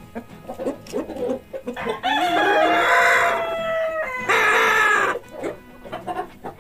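Chickens clucking in short calls, then a rooster crows one long cock-a-doodle-doo about two seconds in, the loudest sound, before the clucking goes on near the end.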